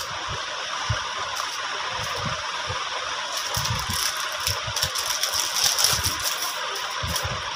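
Handling noise as small jewellery items and their pouches are moved about: scattered light rattles and rustles, busiest in the second half, over a steady background hiss with occasional low bumps.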